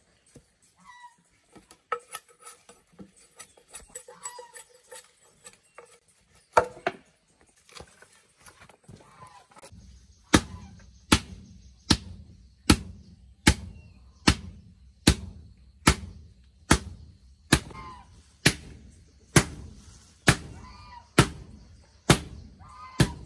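A hand tool striking repeatedly: about sixteen sharp blows, a little more than one a second, start about ten seconds in after a few scattered knocks.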